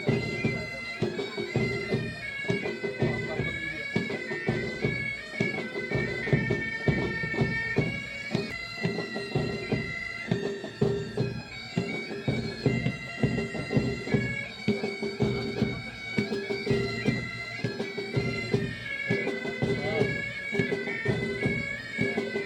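A military pipe band playing: bagpipes carry a stepping melody over their steady drone, with drumbeats throughout.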